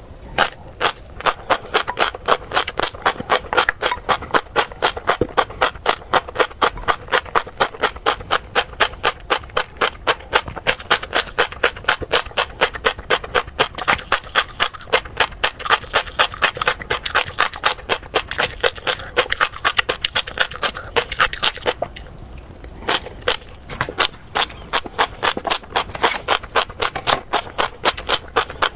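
Close-up chewing of tobiko (flying fish roe), crunching and popping in a steady rhythm of about three or four crunches a second, with a short pause a little past the middle.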